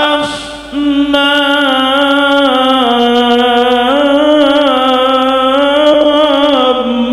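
A male qari reciting the Quran in melodic tilawah style. After a brief pause for breath just after the start comes one long held phrase with ornamented turns. Its pitch steps down midway, rises again, and falls at the close shortly before the end.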